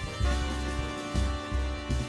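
Music with a steady beat and a heavy bass line.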